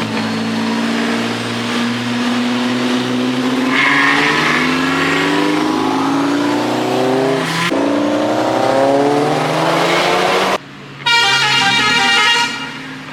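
A car engine revving, its pitch climbing slowly, dropping back and climbing again. Near the end it cuts off and a car horn sounds briefly.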